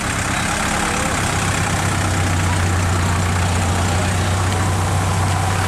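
Engine of a light flatbed truck running, its low steady hum growing louder about a second in as the truck pulls away.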